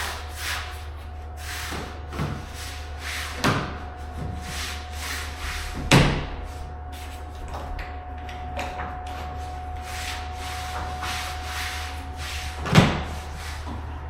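Underlayment sheet being pushed and tucked under the baseboard along the wall, with rustling handling noise and a few knocks against the wall and floor, the loudest about six seconds in and near the end. A faint steady whine runs until shortly before the last knock.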